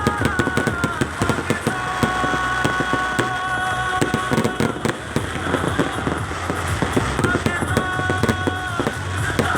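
Fireworks going off in rapid, dense crackling and popping, over music with long held notes.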